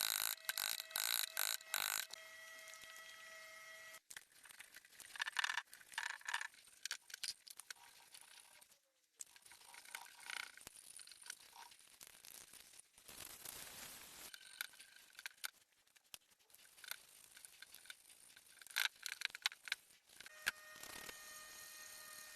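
Intermittent workshop handling sounds: scattered clicks and knocks with short scraping stretches, over a faint steady hum.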